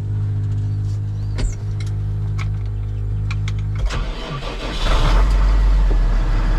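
An engine starts on the key: a few clicks over a steady hum, then cranking about four seconds in, and the engine catches and settles into a loud, steady, low-pitched run.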